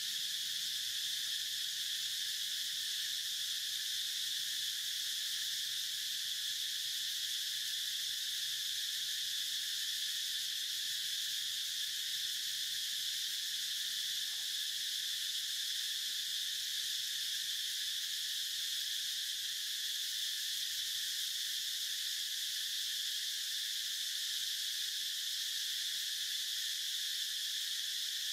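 Insect chorus: a steady, high-pitched buzzing drone that runs without a break or change.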